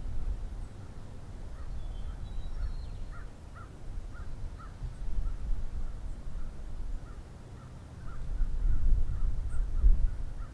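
Birds calling outdoors in a long series of short, harsh calls, about two a second. A few higher, thin notes come briefly a couple of seconds in. A low rumble runs underneath and is the loudest thing, swelling near the end.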